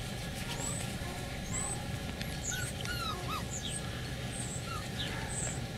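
Beagle puppies whimpering in short high squeaks, most of them in the middle, with thin high chirps about once a second over a steady low rumble.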